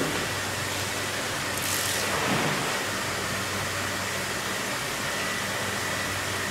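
Steady machine hiss with a low hum, as from a running fan or cooling unit, with a short brighter swish about two seconds in.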